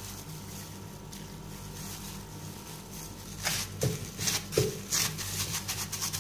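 Plastic-gloved hand kneading wet roti dough in a bowl: irregular squelching and glove crinkling that starts about halfway through, over a steady low hum.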